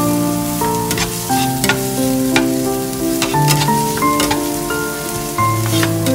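Chopped onion, garlic and chilli frying in butter and oil in a nonstick pan: a light sizzle with frequent scrapes and taps of a metal spatula as it is stirred. Background music with held melody notes and a steady bass plays over it and is the loudest sound.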